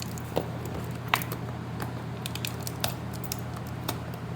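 Small metal assembly hardware (bolts, nuts and washers) being handled and counted out, giving scattered light clicks and ticks over a steady low hum.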